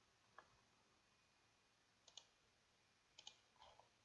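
Faint computer mouse-button clicks over near silence: a single click about half a second in, then quick pairs about two and three seconds in.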